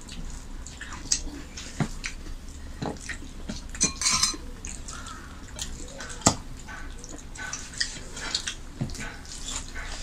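People eating rice and chicken curry by hand: wet chewing and lip-smacking, and fingers mixing rice on glass plates, in a run of short smacks and clicks. A sharp click about six seconds in is the loudest.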